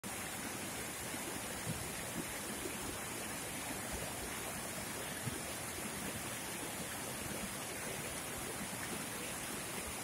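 Rocky mountain stream tumbling over boulders in small cascades: a steady rush of water with a few brief louder splashes.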